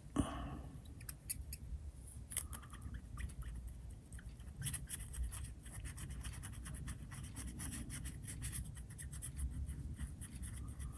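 A fine brush scratching and tapping in a small glass dish of shell gold, mixing the gold with the drops of liquid just added. Faint, quick little clicks and scrapes that come thicker after about four seconds.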